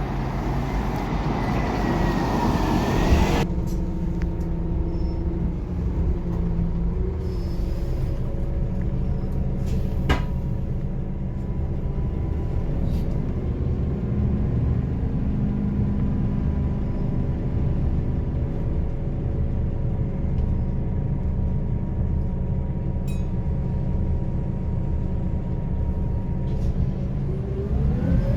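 Scania K270UB bus heard from inside the cabin, its engine running with a steady low drone. A loud hiss fills the first three seconds and cuts off suddenly, there is a single sharp knock about ten seconds in, and near the end the engine's pitch rises as the bus accelerates.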